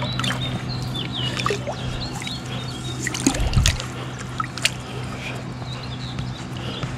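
Shallow river water sloshing and splashing around a hand and a brown trout being let go at the reedy bank, over the steady flow of the river. There are a few sharp splashes and a low thump about halfway through.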